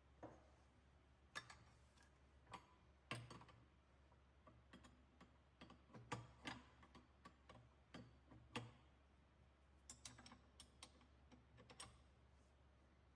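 Faint, irregular clicks and light taps, a dozen or more, from small parts and tools being handled, over a low steady hum.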